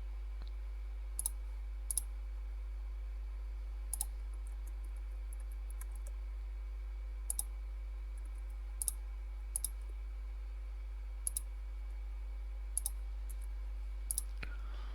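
Computer mouse clicking, a few sharp clicks, often in quick pairs, every second or two, over a steady low hum.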